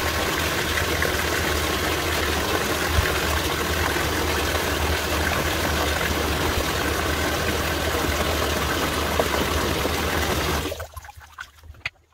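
Bathtub faucet running steadily into the tub, shut off sharply about eleven seconds in, after which only a few faint clicks remain.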